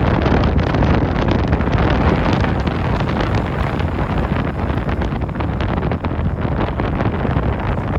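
Wind buffeting the microphone: a loud, steady low rumble with rapid flutter.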